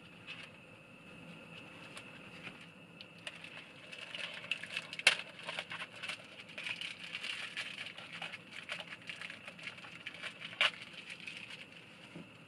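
Plastic food packaging crinkling and crackling as it is handled and opened, in a busy stretch from about four seconds in, with two sharper snaps. Underneath runs the steady hiss of a lit butane cassette-stove burner.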